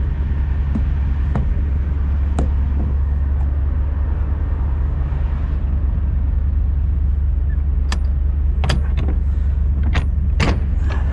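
Cat C15 diesel of a Peterbilt 389 semi idling steadily, with a few sharp clicks and knocks in the last few seconds.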